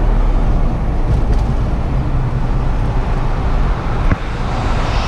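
Steady rush of wind and road noise in the open cockpit of a 2017 Mazda MX-5 roadster driving at a steady speed with the top down.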